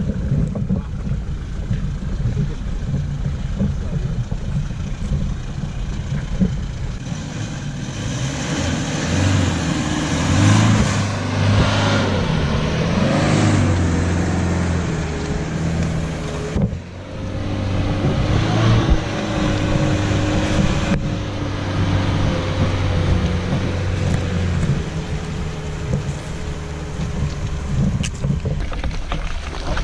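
Four-wheel-drive engines revving under load during a strap recovery on a muddy track. The engine pitch swells and falls, climbing hardest about ten to fourteen seconds in, over a rush of tyre and mud noise.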